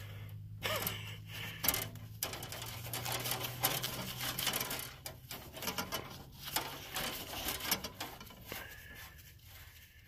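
Gloved hand unscrewing a split brass refrigerant flare nut by hand: scraping and clicking of the threads with the rustle of the work glove. A low steady hum in the background stops about seven seconds in.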